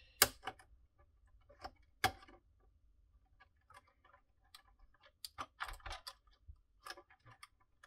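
Light clicks and small handling noises from fingers working cable connectors and plastic parts inside an opened projector. There is a sharp click just after the start and another about two seconds in, then a cluster of small clicks and taps between about five and seven seconds.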